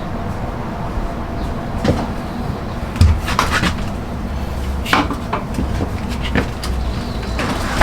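A few short knocks and clatters, like objects or utensils being handled and set down, over a steady low hum.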